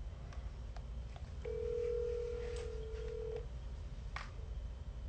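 Telephone ringback tone of an outgoing call, one steady two-second ring heard through the handset. A faint click comes about four seconds in.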